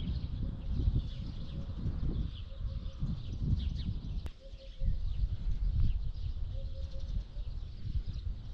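Wind buffeting the microphone in uneven gusts, with birds calling: scattered high chirps and a low call of a few short notes that repeats about every two seconds.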